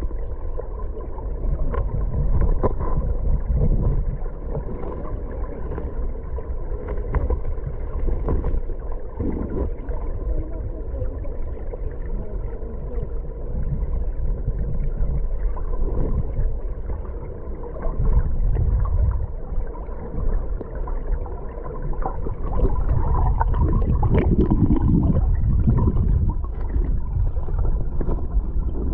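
Muffled low rumble and gurgling of flowing river water heard through a camera submerged in the current, swelling louder in the second half.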